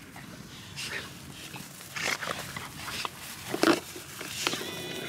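American bully dogs play-fighting: a series of short, sudden growling bursts, the loudest a little past halfway. A steady high whine starts near the end.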